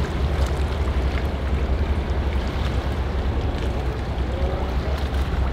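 Steady low rumble of boat engines running on the river, with a noisy wash of water and wind over it.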